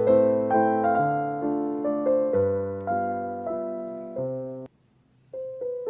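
Background piano music, notes struck and fading one after another; it stops for about half a second near the end, then goes on.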